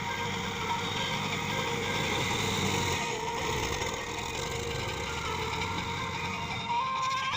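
John Deere tractor's diesel engine running steadily.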